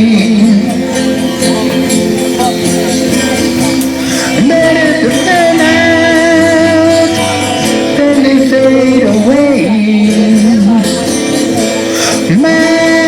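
Live band music: electric guitars and bass playing, with bending, wavering guitar notes.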